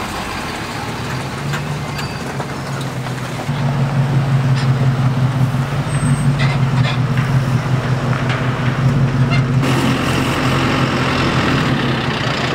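Heavy vehicle engines running: a deep, steady engine drone that gets louder about three and a half seconds in and changes tone near ten seconds.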